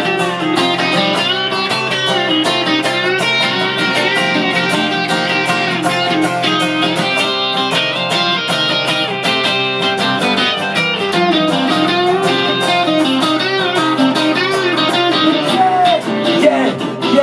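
Instrumental break in an upbeat rock-and-roll song played on guitars: a moving lead guitar line over steady strummed rhythm guitar.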